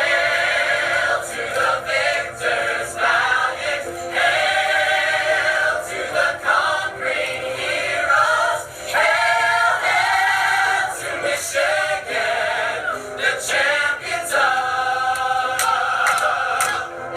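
Several voices singing a tune together in chorus, thin-sounding with little bass.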